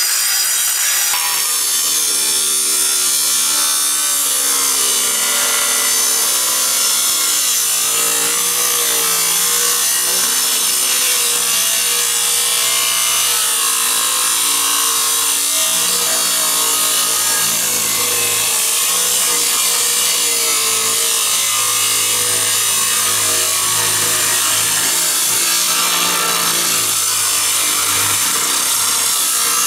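Large AEG 18V brushless cordless angle grinder running under load, its abrasive cut-off disc grinding steadily through steel angle with a loud, continuous hiss. At the very start the disc is cutting into concrete, and the sound changes about a second in.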